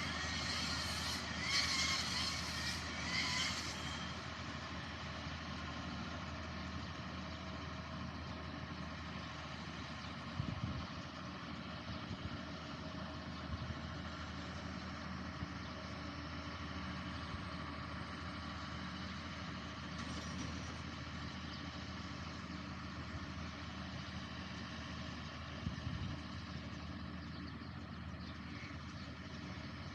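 Engine of a farm machine running steadily, with several short hisses in the first few seconds and a couple of dull knocks later on.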